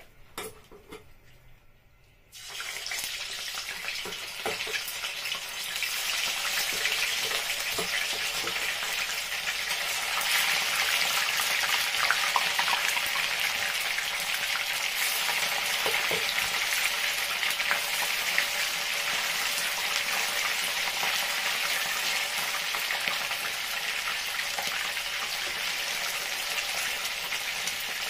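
Pieces of seasoned whiting frying in hot palm and vegetable oil in a frying pan: a sizzle that starts suddenly about two seconds in, when the first fish goes into the oil, and keeps up steadily as more pieces are added.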